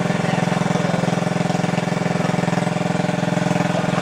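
Small engine running steadily at one constant speed, driving a pump that sucks water out of the pond.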